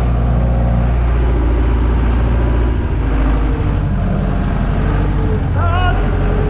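Renault 651 tractor engine running steadily under way, heard loud from the driver's seat, its low note shifting about three seconds in. A brief high, wavering squeak comes near the end.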